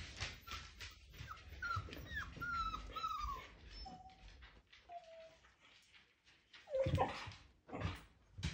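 Five-week-old Siberian husky puppies whimpering and yipping: a quick run of short, high, falling whines in the first few seconds, two lower short whines around four and five seconds, then a louder yelp about seven seconds in. A sharp knock follows near the end.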